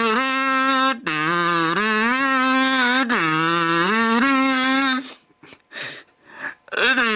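Metal kazoo played as a slow tune of long held, buzzy notes, each phrase sliding up in pitch at its start and then holding. It breaks off for about two seconds near the end, then starts a new note.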